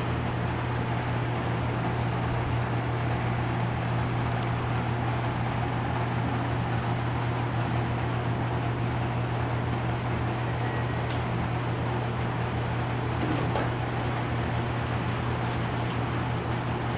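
ILIFE X5 robot vacuum running steadily, a constant low hum with a broad whirr over it, as it drives around searching for its charging base.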